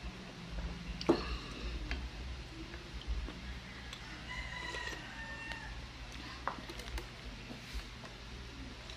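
A rooster crowing once, a held call of about a second and a half near the middle. A sharp clink comes about a second in.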